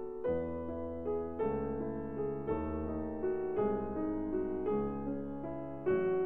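Background piano music: slow, gentle notes or chords struck about once a second.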